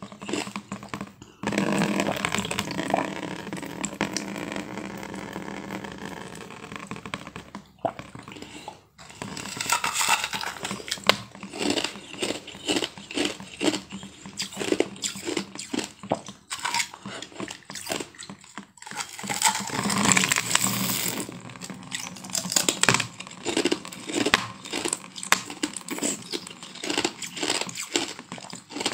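Biting and chewing a thin sheet of frozen blue-tinted ice, close to the mouth: many sharp cracks and crunches in quick succession, with denser stretches of grinding as the pieces are chewed.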